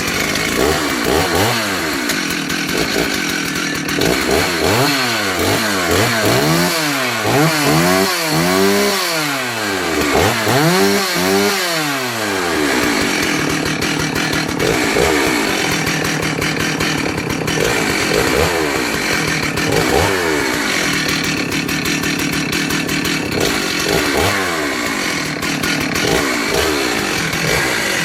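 Stihl 038 AV Super two-stroke chainsaw, just started, revved up and down again and again for about twelve seconds. After that it runs at high revs with a few brief dips in pitch.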